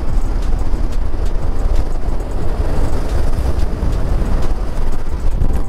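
A maxi-scooter riding along at road speed: wind buffets the microphone in a loud, steady low rumble over the engine and tyre noise.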